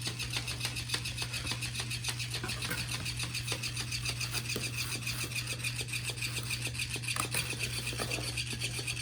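Steady, fast rhythmic rasping and rubbing, several strokes a second, over a constant low hum.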